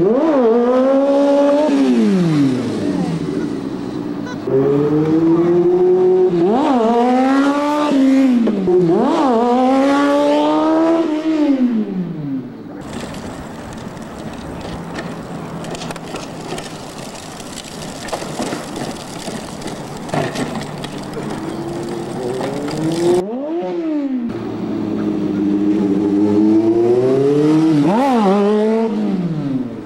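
Sport motorcycle engine accelerating hard, its pitch climbing in steps through several gear changes and then dropping away, twice. In the middle stretch the engine gives way to a steady outdoor hiss.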